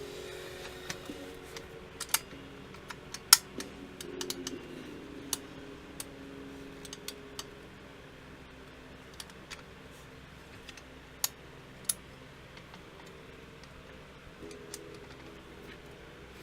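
Scattered sharp clicks and light taps of small hard parts being handled, irregular and a few seconds apart, with faint background music at the start and near the end.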